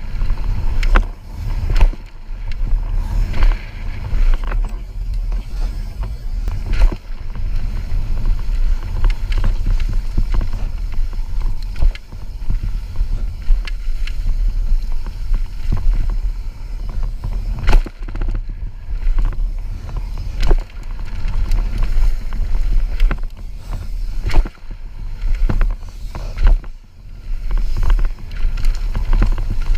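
Wind buffeting the microphone of a rider-mounted camera on a mountain bike running fast downhill, with tyre noise on dirt and frequent sharp knocks and rattles from the bike over bumps and landings.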